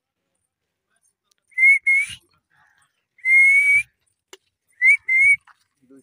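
A person whistling close by in five notes at one steady, slightly rising pitch: two short, one longer, then two short. It is a call to get a sleeping tiger to wake and come over.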